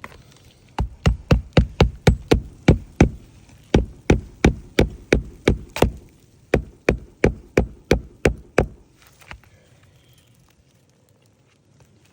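Hammer driving roofing nails through an asphalt shingle: three runs of sharp hammer blows, about three a second, each run ending as a nail is set.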